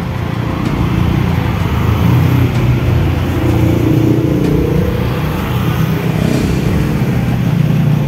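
Small motorcycles and scooters passing along a street, their engines running steadily with a slight rise and fall in pitch through the middle.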